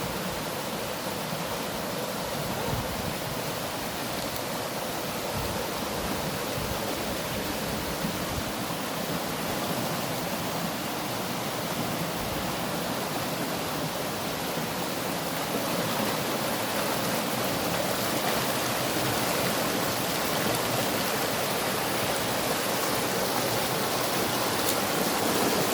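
Water rushing steadily, as from a stream or waterfall, a constant even hiss that grows a little louder over the second half.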